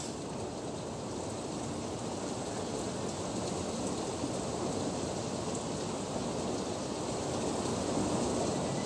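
Steady rain falling during a thunderstorm, a dense even hiss that slowly grows louder toward the end.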